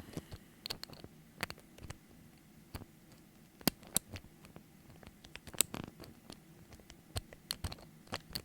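Scattered light clicks and ticks of a lock pick and tension wrench working inside a door knob's pin-tumbler lock, at irregular intervals, a few sharper clicks about halfway through.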